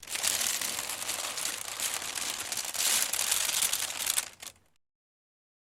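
Wicker under stress, its woven strands crackling and crunching in a dense, continuous run that swells about three seconds in, then dies away just before the five-second mark.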